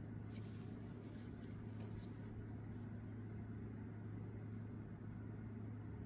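Steady low hum of a running air conditioner, with a few faint rustles of a blanket being moved in the first couple of seconds.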